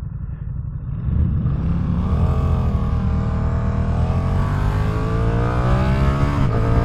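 Ducati Streetfighter V2's 955 cc Superquadro V-twin engine under acceleration. It gets louder about a second in, its pitch climbs steadily, and it breaks briefly near the end, with wind rushing underneath.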